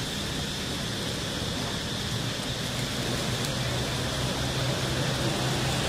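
Steady outdoor background noise: an even hiss with a constant high-pitched drone, over a low hum that grows slightly louder in the second half.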